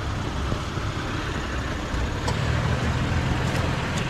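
A motor vehicle engine running steadily, its low hum growing stronger about two seconds in, over a constant outdoor noise.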